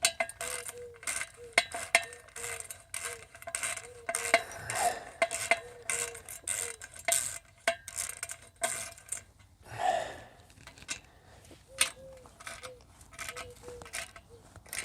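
A 14 mm socket wrench clicks and clinks in short, irregular strokes as bolts are tightened down gently by hand.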